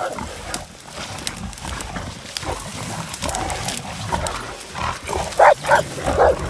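Wild hog caught and held by hunting dogs, squealing in short bursts, the loudest three or four close together near the end, with scattered crackling clicks.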